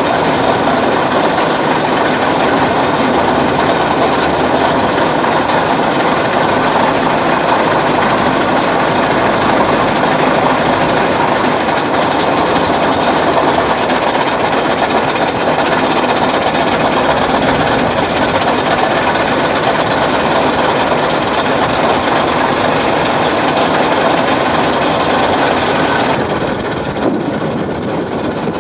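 Boat engine running steadily at a constant speed, a loud continuous drone. Near the end its sound dulls a little and drops slightly in level.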